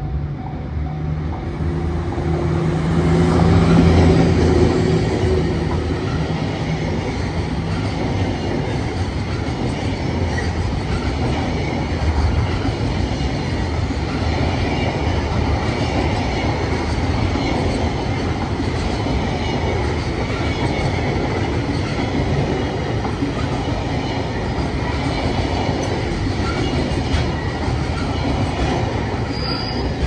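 Freight container train passing close by. The locomotive goes by first with a low, steady hum, loudest about four seconds in. A long string of container wagons follows with continuous wheel-on-rail rolling noise, which falls away at the very end.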